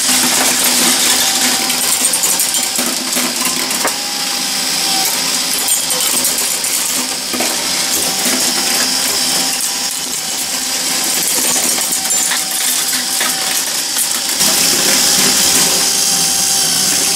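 Glass marbles clattering and clinking through a running Meccano marble machine's metal tracks and lifts: a continuous jumble of rapid clicks and small knocks, with a faint steady tone from the machinery under it.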